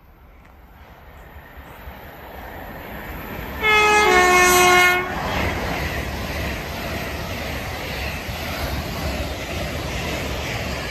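An LNER express passenger train approaching and passing at speed. Its rumble builds, and about four seconds in it sounds its two-tone horn for about a second, a higher note then a lower one, before the loud rush of the train going by.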